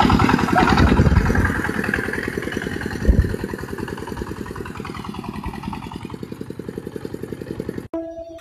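Single-cylinder diesel engine of a two-wheel walking tractor chugging steadily, slowly fading, with one dull thump about three seconds in. The engine sound cuts off suddenly just before the end.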